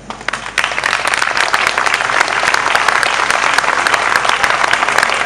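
Audience applauding: many hands clapping, swelling within the first half second and then going on steadily.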